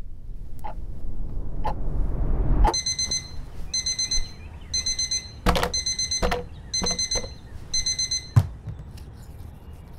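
A low rumbling swell rises and cuts off suddenly. Then an alarm beeps in short bursts of rapid beeps, about one burst a second, with a few thumps of bedding being thrown about. A thud about eight seconds in comes as the beeping stops.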